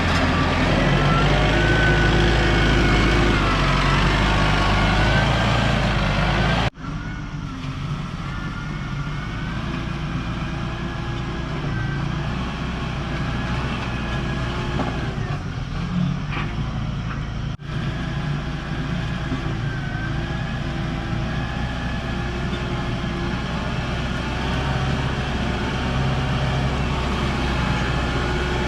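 Tractor engine running steadily while grading gravel, its pitch wavering slightly with load. The sound breaks off abruptly twice, about 7 and 17 seconds in, and resumes at once.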